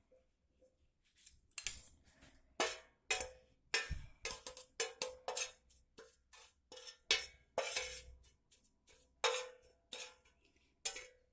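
Spoon scraping and clinking against a dish while scooping powdered ash, a quick run of short scrapes and clicks, each with a brief ring.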